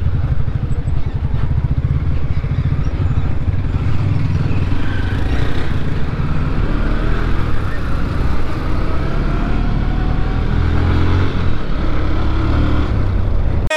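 Motorcycle engine running as the bike pulls away from a crawl and accelerates, its note rising as it gains speed.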